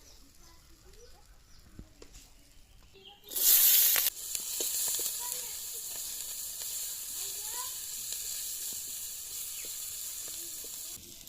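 Food going into hot cooking oil in a pan about three seconds in: a sudden loud sizzle that settles into steady frying, then cuts off near the end.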